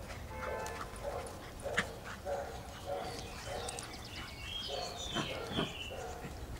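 Dogs at play barking in a run of short, repeated yaps, with higher squeaky yelps about five seconds in.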